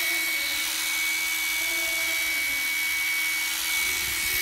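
Makita 12V cordless drill with external carbon brushes running free at full, steady speed, with a steady high motor whine. It runs smoothly, a sign that the used motor is healthy.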